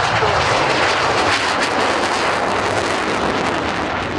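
MiG-29's twin Klimov RD-33 turbofans at full afterburner as the fighter takes off and climbs away: a loud, steady jet roar with a crackling edge through the middle, easing slightly near the end.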